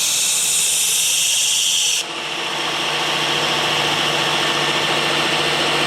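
Work Sharp electric belt sharpener running with an 80-grit belt, a pocket knife blade grinding against the belt with a bright hiss as the edge is reprofiled. About two seconds in the grinding hiss cuts off and the motor and belt run on with a steady hum.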